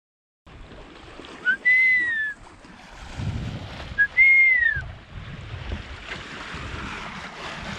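Two arching whistled notes, each rising then falling and led by a short chirp, about two and a half seconds apart, over steady wind and water noise aboard a sailboat.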